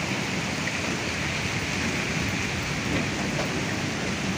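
Continuous heavy rain falling after the hail has stopped, an even, unbroken hiss.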